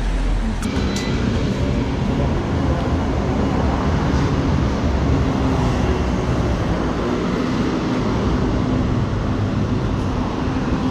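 A large motor vehicle running close by: a steady low rumble with a faint hum in it.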